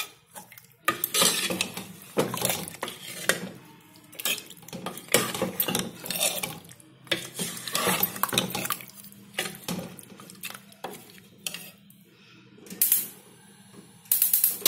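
Metal ladle stirring chicken curry in a pressure cooker pot, scraping and clinking against the metal sides and bottom again and again. A couple of louder knocks come near the end.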